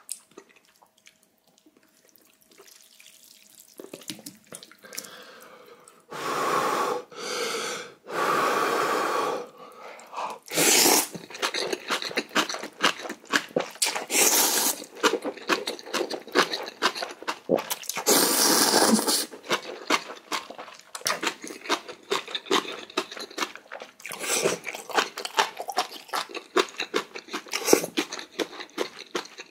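Close-up eating sounds of spicy ramen: three long, loud slurps of noodles, each about a second, with dense wet chewing and mouth clicks between and after them.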